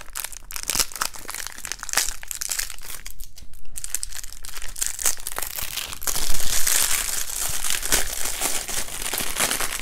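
Plastic wrap crinkling and tearing as it is bitten through and then pulled open by hand. There is a brief lull a little after three seconds, and the crinkling is loudest from about six seconds on.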